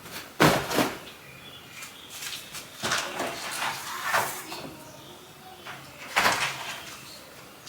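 A few sharp knocks and bumps of objects being handled, the loudest about half a second in and another about six seconds in, with softer ones between.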